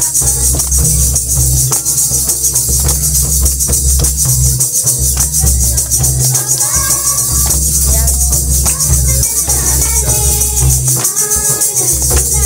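A group of women singing a Munda welcome song (swagat geet) together, over a steady high jingling like shakers and a heavy low beat.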